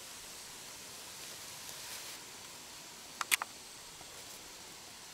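Quiet bush ambience: a faint steady hiss that swells briefly about two seconds in, broken a little after three seconds in by three sharp clicks in quick succession, the middle one loudest.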